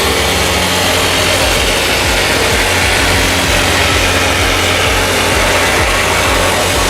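A woodworking machine or power tool running steadily, with a loud, even mechanical noise.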